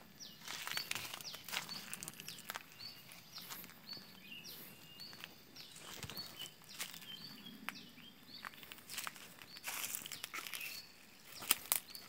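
Small birds chirping: many short, high hooked chirps, one every second or so. Footsteps and rustling on dry leaf litter under them, a few sharper crunches near the end.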